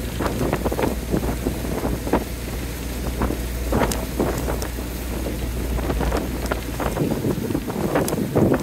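Small wooden motorboat under way: a steady low engine hum, with water slapping against the hull and wind buffeting the microphone. The engine hum drops away about seven seconds in.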